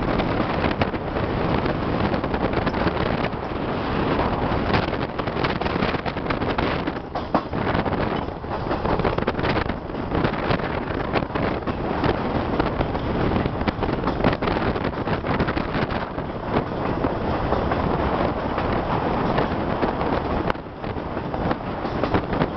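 Wind buffeting the microphone at the window of a moving Chepe passenger train, over the steady running noise of the cars on the rails.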